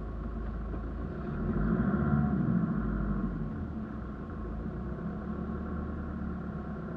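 Off-road 4x4's engine heard from inside the cab as the vehicle drives slowly forward over a rough, muddy track: a steady low rumble that swells louder about a couple of seconds in as the engine takes load, then settles back.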